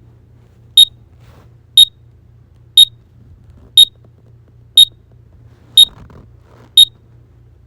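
Digital alarm clock beeping: short, sharp, high-pitched single beeps, one a second, seven in all.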